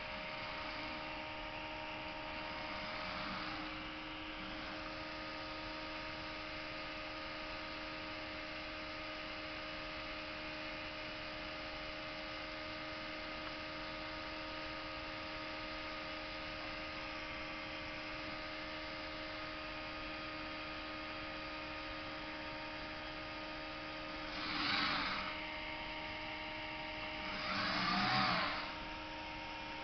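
Homemade robot's electronics giving a steady hum of several fixed tones. Twice near the end comes a louder, one-second whir of its small drive motors as it turns on the spot.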